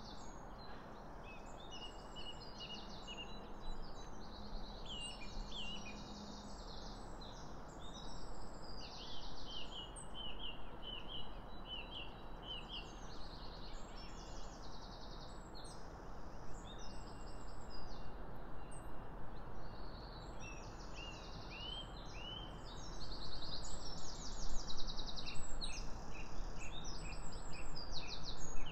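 Several songbirds singing throughout, with many short repeated chirps and trills, over a steady low hiss of background noise. The bird calls grow louder and busier near the end.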